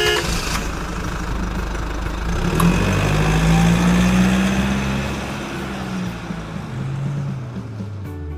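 An engine running, its pitch rising about two and a half seconds in, holding, then easing back down after about five seconds.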